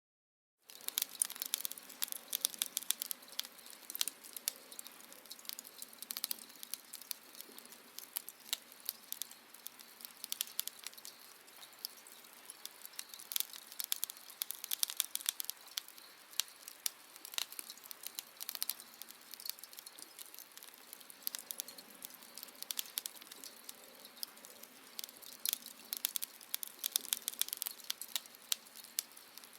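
Fire with glowing embers crackling: a steady run of irregular sharp pops and snaps over a faint hiss, thicker in some stretches than others.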